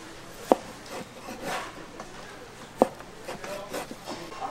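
Kitchen work noises: two sharp knocks about two seconds apart, with faint rubbing and scraping between them.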